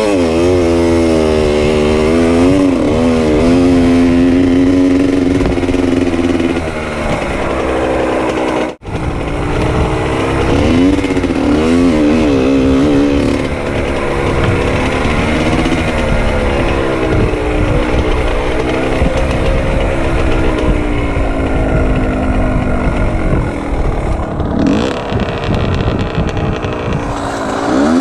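Small two-stroke dirt bike engine revving up and down repeatedly as it is ridden, its pitch climbing and dropping with the throttle, with a brief break about nine seconds in.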